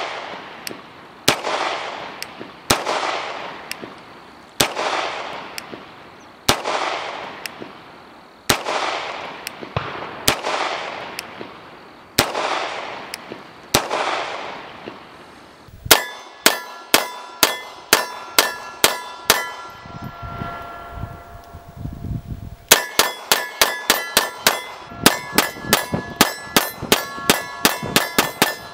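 Beretta 92S 9mm pistol firing: for about the first half, slow, evenly paced single shots, each followed by a fading echo. Then two fast strings of shots, several a second, with a short pause between, and each shot leaves a ringing metallic tone.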